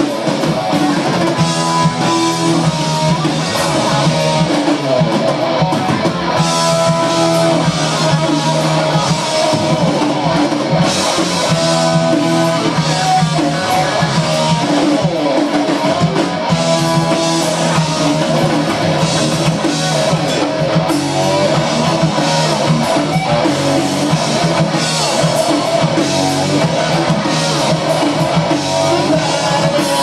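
Live hard rock band playing an instrumental passage between sung lines: guitar over a drum kit, loud and continuous.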